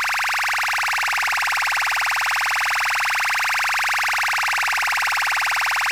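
Make Noise modular synthesizer, an XPO oscillator through a QMMG, giving a steady, dense stream of very rapid short grains that blur into a buzzing midrange tone.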